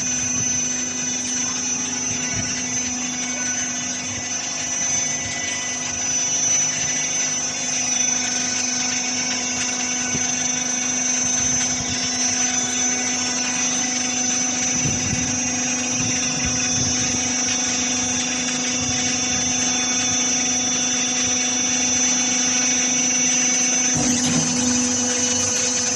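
Three-cylinder hydraulic square baler running, its motor and hydraulic pump giving a steady hum with a high whine over it.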